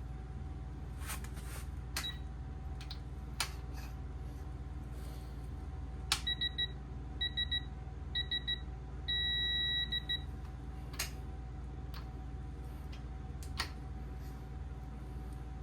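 Electronic torque wrench beeping in short groups as a bolt is drawn up toward the set torque, then one steady beep of about a second when the target is reached. A few sharp tool clicks are heard before and after, over a steady low hum.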